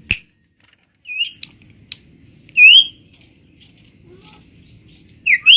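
Common iora (sirtu/cipo) giving short whistled calls: several quick rising notes, the loudest a rising whistle about two and a half seconds in, and a falling-then-rising pair near the end. A few sharp clicks come between the calls.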